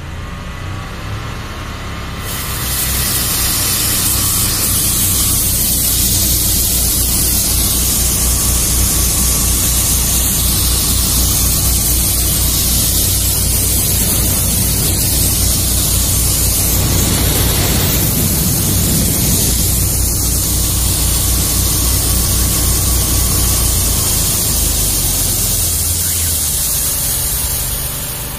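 Engine-powered high-pressure drain jetter running on both of its engines, the open high-pressure hose blasting a full water jet with a loud steady hiss that comes up about two seconds in, over the engines' low drone. Near the end the engine drone drops away and the hiss fades.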